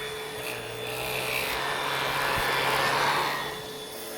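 Vax Pace Pet vacuum cleaner running, a steady motor whine under a rushing scrape of suction and brushing over carpet that swells and is loudest about three seconds in as it picks up dirt.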